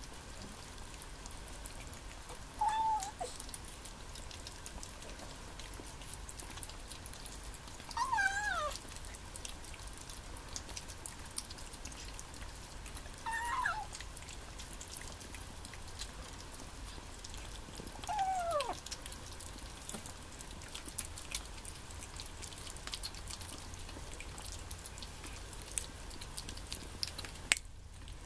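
Kittens eating wet cat food from small dishes, with faint clicks of chewing and licking throughout. Four short kitten meows come about five seconds apart, mostly sliding down in pitch.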